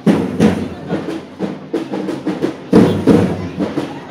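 Drums of a street procession beaten in a fast, steady rhythm, with a heavy accented stroke at the start and another after nearly three seconds.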